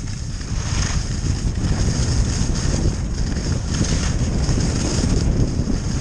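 Wind buffeting a helmet-mounted GoPro microphone as a skier runs fast downhill, a heavy low rumble with a hiss over it. It grows louder over the first second or so as speed builds, then holds steady.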